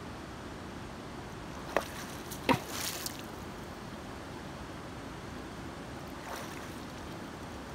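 Steady rush of shallow river water over stones, with a few short knocks and splashes about two to three seconds in, and one more faintly near the end, as hands dig in the gravel underwater.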